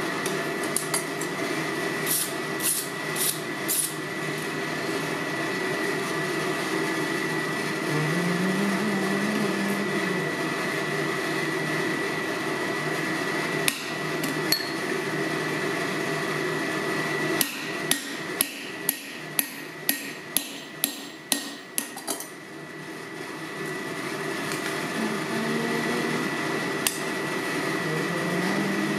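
Hand hammer striking a square punch into red-hot steel bar on an anvil: a handful of blows a couple of seconds in, then a quick run of about ten strikes two thirds of the way through, with a steady hum underneath.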